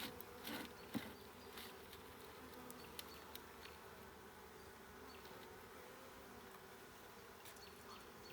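Honeybees buzzing around an open hive: a faint, steady hum. A few light clicks and knocks come in the first second or so.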